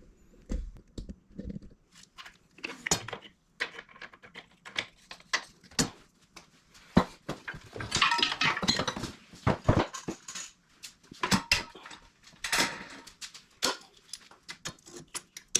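Irregular metallic clinks, clanks and rattles of a steel blade being handled and set into a clamp, with no grinder running.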